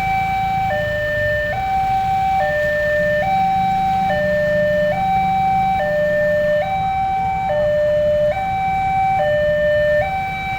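Babaranjang coal train's bus-style telolet horn sounding a two-tone, siren-like call, swapping between a higher and a lower note a little under once a second without a break, over a steady low rumble.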